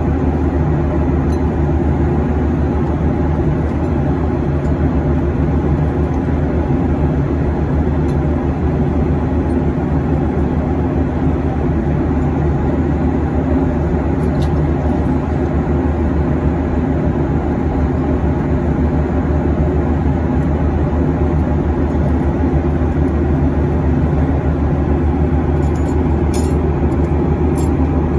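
Steady cabin drone of a Boeing 737-800 in flight, heard from inside the cabin: the even, unchanging noise of its CFM56 turbofans and the rushing airflow.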